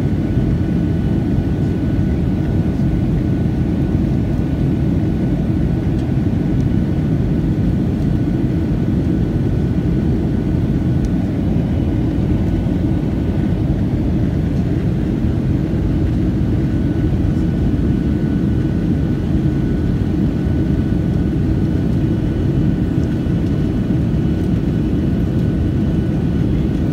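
Steady airliner cabin noise from a window seat beside the wing: turbofan jet engine and airflow making a dense, even low rush with a faint thin whine above it.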